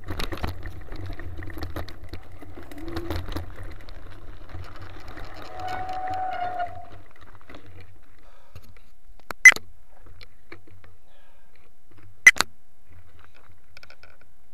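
Mountain bike rolling fast down a dirt singletrack, the frame and camera mount rattling and rumbling over the rough ground, with a brief squeal about six seconds in. The riding then goes quieter, broken by two sharp knocks, the loudest sounds, about nine and twelve seconds in.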